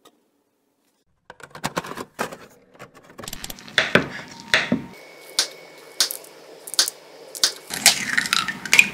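Knife slicing food on a wooden chopping board, a sharp knock on the board about twice a second, after about a second of near silence. Near the end an egg is cracked and broken into a glass mug.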